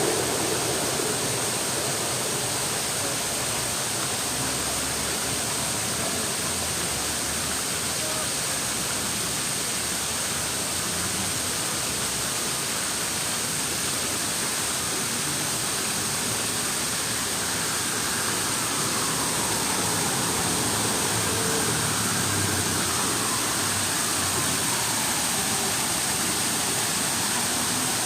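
Steady rush of running water, an even unbroken noise.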